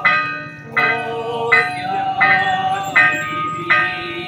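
Church bells ringing in a quick festive peal: a new strike about every three-quarters of a second, with bells of different pitches taking turns and each one ringing on until the next.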